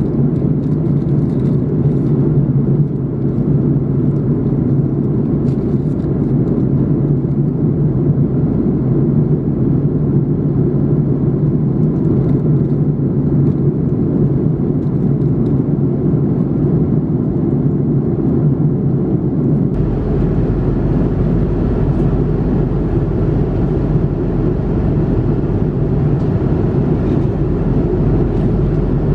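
Steady in-flight cabin noise of an Airbus A330-300 airliner: a loud low rumble of airflow and engines. About twenty seconds in it changes abruptly to a hissier, slightly different rumble.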